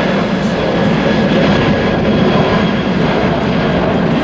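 Jet engines of a China Airlines Airbus A330 climbing out after takeoff: a loud, steady rumble that neither rises nor falls.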